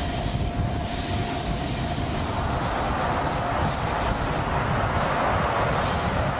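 Fixed-wing aircraft engine running: a steady rushing noise with a faint held whine, growing somewhat brighter about halfway through.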